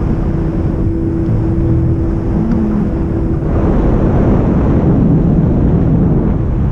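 Wind rushing over the camera microphone of a paraglider in flight, a steady low buffeting that grows louder and brighter about three and a half seconds in.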